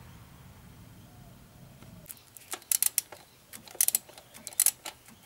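Ratcheting spanner clicking in short rapid bursts, about four bursts, as a nut is undone. A low steady background hum stops about two seconds in.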